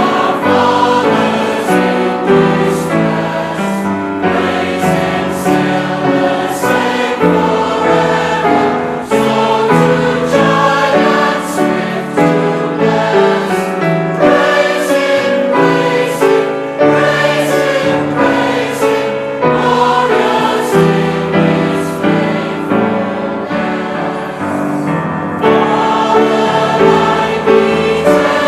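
A choir singing a hymn in sustained chords, easing briefly a few seconds before the end and then going on.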